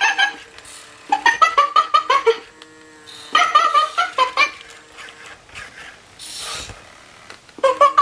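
Animatronic chimpanzee puppet playing recorded chimp-like chattering calls through its small speaker: three bursts of quick pulses, about seven a second, each a second or so long, with a short hiss in between.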